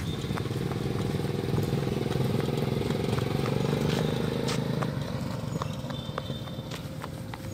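Engine of a small homemade replica jeep running as it drives slowly across dirt, a steady fast pulsing that grows fainter from about five seconds in as the jeep pulls away. A few sharp ticks sound over it.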